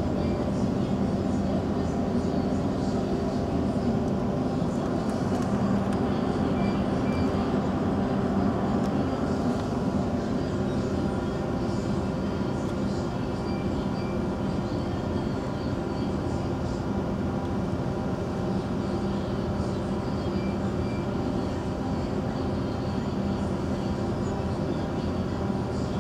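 Steady machinery drone: a constant hum with several held tones, with no change in level throughout.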